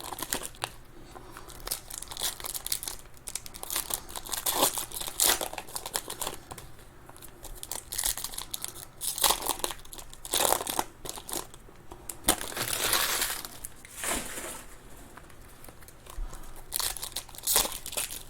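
Trading-card pack wrappers crinkling and being torn open by hand, in irregular rustling bursts with pauses between them.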